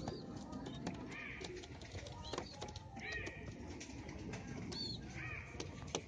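Flock of young racing pigeons: a few short, high, arched peeps over scattered clicks and taps, above a steady low background noise.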